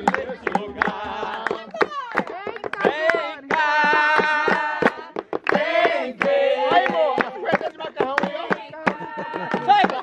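A group of voices singing a Christian praise song together, men and women at once, with frequent sharp beats running through it.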